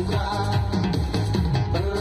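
Upbeat dance music with a steady beat and a strong bass line.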